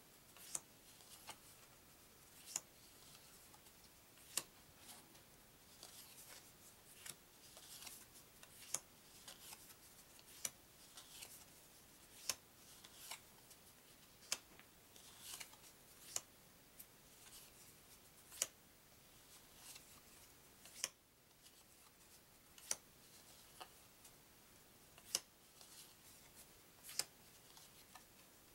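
Printed cardboard trivia cards being flipped off a stack one at a time: a short, sharp snap of a card edge about once a second, with faint paper sliding between.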